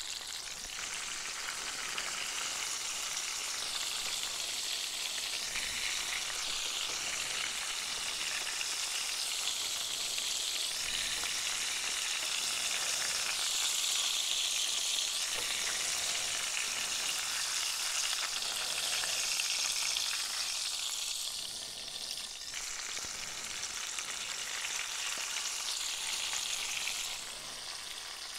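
Breaded oysters frying in hot oil and butter in a cast iron skillet, a steady sizzle with bubbling. The sizzle dips briefly about three-quarters of the way through and again near the end.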